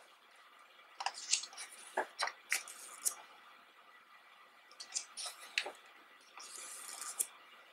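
Pages of a hardcover photobook being turned by hand: paper rustling and crinkling in several short clusters, with a brief swish of a page sliding over near the end.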